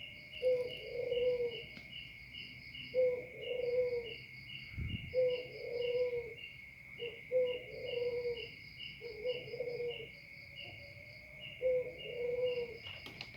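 Spotted dove (tekukur) cooing its song, six phrases in a row about every two seconds. Under it runs a steady chirping trill of crickets or other insects, pulsing about three times a second.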